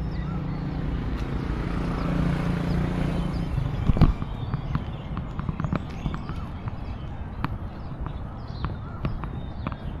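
Outdoor park ambience during a walk: a steady low rumble with a hum for the first few seconds, small birds chirping high, and from about four seconds in a loud knock followed by a run of sharp taps, footsteps on a hard path.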